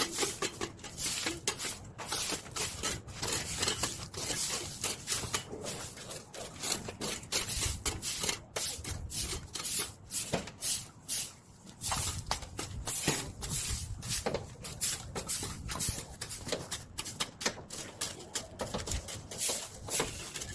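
Hand tool rubbing and scraping against copper AC tubing in quick, uneven strokes, a few a second.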